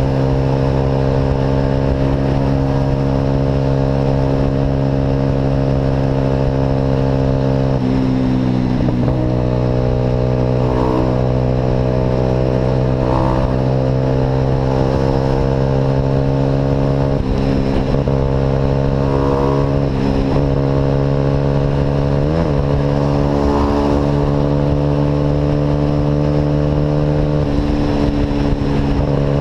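Car engine with an aftermarket Atalla exhaust droning steadily while driving, its pitch holding for several seconds at a time and shifting a few times as the revs change.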